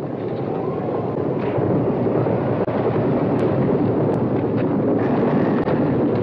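Chariot-race sound from a film soundtrack: a dense, steady rumble of galloping horse teams and chariot wheels on sand, mixed with a roaring crowd, swelling a little over the first couple of seconds.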